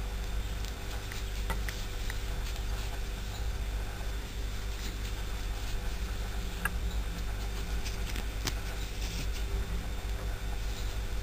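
Steady low hum with faint, scattered ticks and rustles of a metal crochet hook working cotton yarn.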